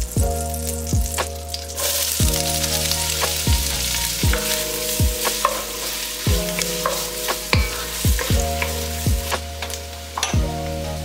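Diced onion sizzling in melted butter, louder from about two seconds in when the onion goes into the pot, and stirred with a wooden spatula. Background music with a steady kick-drum beat plays throughout.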